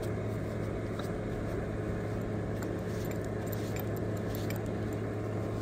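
Steady low mechanical hum, with faint scattered clicks and rustles as the greasy hydraulic cab-jack pump is handled and wiped with a paper towel.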